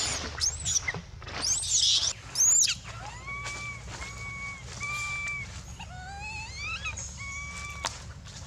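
Baby long-tailed macaque crying in distress: shrill, rising-and-falling screams for the first few seconds, then a run of steady, whistle-like coo calls, one of them rising in pitch.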